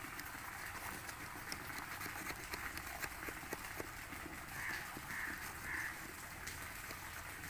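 Small Swiss Army knife wood saw rasping through a thick jamun branch, with many small ticks of the teeth catching the wood. Three short bird calls come a little past halfway.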